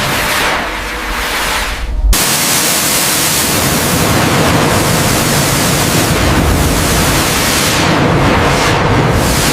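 Loud steady rushing noise, broken by a sudden low boom about two seconds in, after which the rushing carries on fuller.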